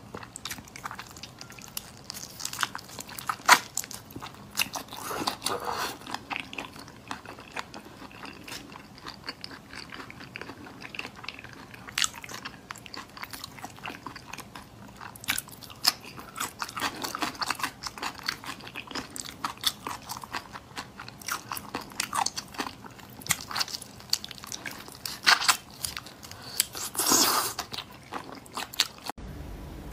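Close-miked eating of raw soy-marinated shrimp: shells cracking and being pulled off by hand, bites and chewing, in quick irregular clicks and crunches. The sounds stop abruptly near the end.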